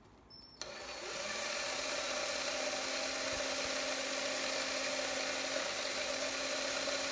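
Electric drill starting about half a second in, spinning up over a second and then running steadily at speed with a steady whir, turning a plastic PET bottle mounted on a rod through its middle.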